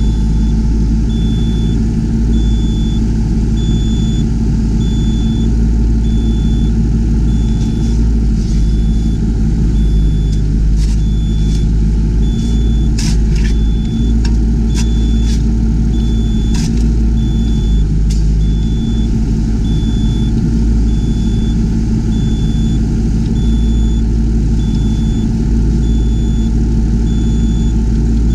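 Yanmar ViO20 mini excavator's diesel engine running steadily under work, with a short high electronic beep repeating about once a second. A run of sharp knocks comes through the middle stretch.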